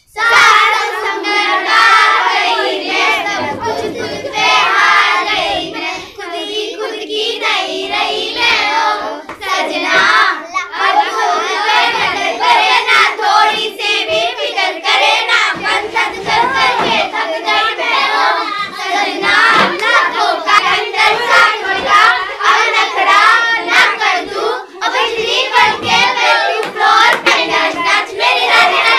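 A group of children singing a Hindi song together, with hand clapping along.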